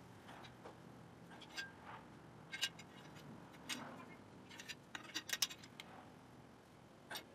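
Scattered light metallic clicks and clinks of soft copper tubing shifting and being bent in a hand 1/2-inch conduit bender, with a quick run of clicks about five seconds in.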